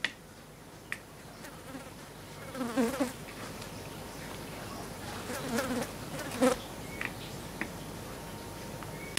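Electrolytic capacitor being overloaded until it fails: a hissing sizzle that grows louder, with two stretches of electrical buzzing and a few sharp clicks.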